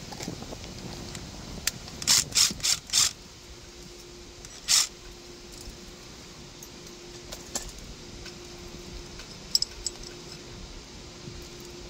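Short metallic clicks and scrapes of hand work on hardware: a quick run of four sharp sounds about two seconds in, one more a couple of seconds later, and a few light clicks near the end, over a faint steady hum.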